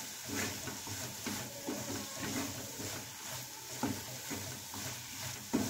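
Chopped vegetables and masala sizzling in a kadhai while a wooden spatula stirs them, scraping against the pan in short irregular strokes.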